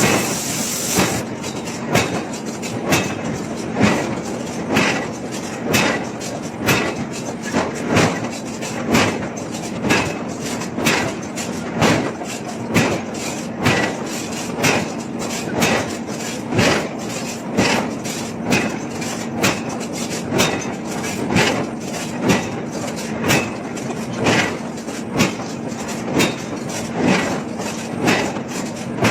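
Heavy forging hammer striking hot steel in an even rhythm, about one blow a second, over a steady low machine hum.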